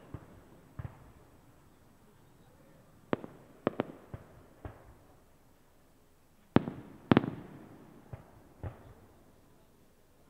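Aerial fireworks bursting: about a dozen sharp bangs in scattered groups, each trailing off in an echo. The loudest pair comes about two thirds of the way through.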